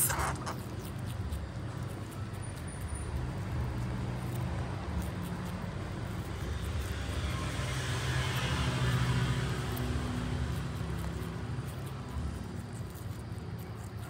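A motor vehicle's engine running with a steady low hum, growing louder about eight to ten seconds in and then easing off, as if passing by.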